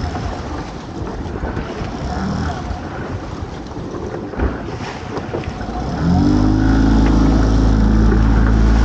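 Small fishing boat's engine under wind and water noise; about six seconds in, the engine picks up revs and a much louder, steady engine note holds.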